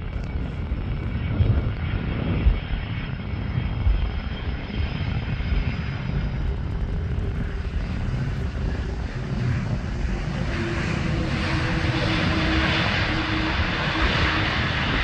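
Twin-engine Airbus A330 jet on its takeoff run, engines at high thrust, a steady jet-engine noise with low rumble that grows louder and brighter in the second half as the aircraft passes and lifts its nose.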